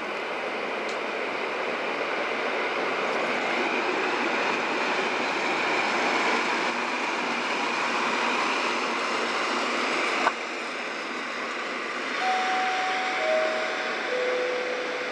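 EN57 electric multiple unit pulling away from the platform and rolling past, its running noise growing louder over the first several seconds and then holding. A sharp click comes about ten seconds in, and near the end three short tones step down in pitch.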